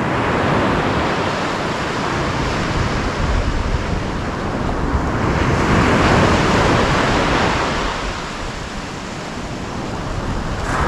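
Sea surf breaking and washing up a sandy beach, rising and falling in slow surges, with the biggest wave about halfway through and a lull near the end.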